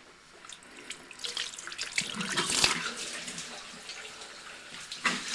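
Bathroom sink tap turned on and running into the basin, with irregular splashing as hands work in the water; loudest about two to three seconds in.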